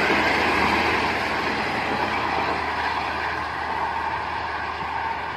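Traffic on the toll road: a coach bus and a truck passing at speed, a steady rush of tyre and engine noise that slowly fades as they move away.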